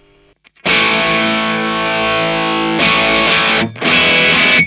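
Electric guitar played through a Marshall JCM2000 DSL100 valve amp head on its ultra gain channel, giving a distorted tone. One chord rings for about two seconds, then two more chords are struck in quick succession.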